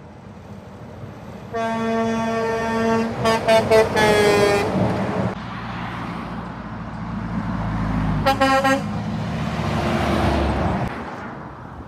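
Semi-truck air horn: a long blast starting about one and a half seconds in, a few quick toots, then a held note that sags in pitch. A second short blast comes near the eight-second mark, as a tractor-trailer's diesel engine and tyres grow louder, pass close and fade near the end.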